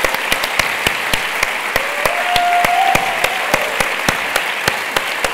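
Conference audience applauding: many hands clapping in a dense, irregular patter that keeps up steadily.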